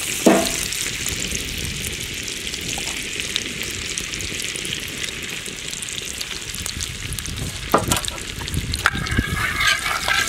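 Butter and cooking oil sizzling in a hot iron tava griddle: a steady frying hiss with fine crackles. Near the end a metal spatula scrapes across the pan as it spreads the fat.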